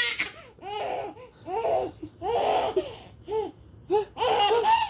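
Baby laughing in several short bursts of high-pitched giggles with brief breaths between them, loudest near the end.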